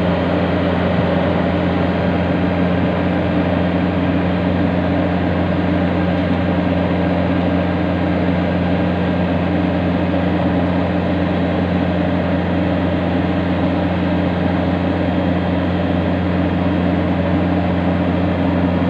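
Yanmar YH850 combine harvester's diesel engine running at a steady speed, a constant low drone that does not change.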